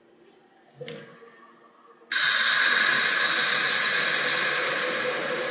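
Water poured into a freshly TIG-welded metal pipe, hissing and sizzling into steam as it hits the still-hot weld. The hiss starts suddenly about two seconds in and carries on steadily, easing slightly, after a faint knock about a second in.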